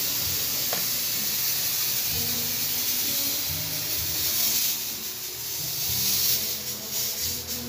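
Smoke machine blowing a steady hiss of fog. Faint background music with a beat plays underneath.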